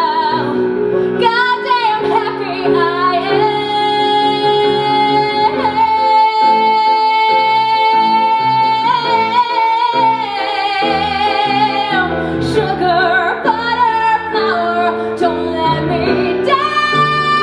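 A woman singing a musical theatre ballad solo, accompanied by a grand piano. She holds several long notes, some with vibrato, over the piano's changing chords.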